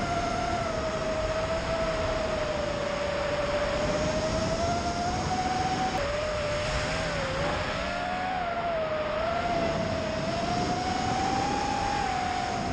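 Tyro 99 FPV quadcopter's brushless motors and propellers whining in flight: a steady tone whose pitch drifts up and down with the throttle, over a rush of wind noise. The pitch jumps suddenly about halfway through.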